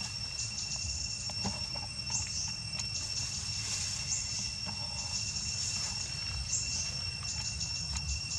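Insects chirping and droning in a steady outdoor chorus: a constant high whine with repeated clusters of sharp high chirps every second or two, over a low rumble.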